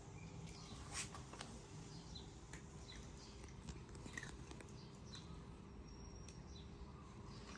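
Faint crunching of a cat chewing dry kibble, with small clicks. Short high chirps come and go in the background, and there is a sharper click about a second in.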